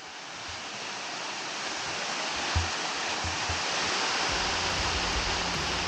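Steady rush of flowing water fading in and growing louder, with low music bass entering and holding from about four seconds in.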